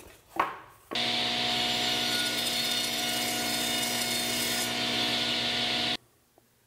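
Table saw running and ripping a panel along the fence past a splitter mounted behind the blade: a steady machine whine with a hiss of cutting over it. The cut goes through cleanly, with no kickback. The sound starts suddenly about a second in and cuts off suddenly near the end.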